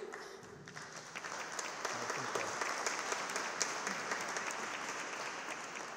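Audience applauding, a dense patter of many hands clapping that swells over the first two seconds or so and slowly dies away toward the end.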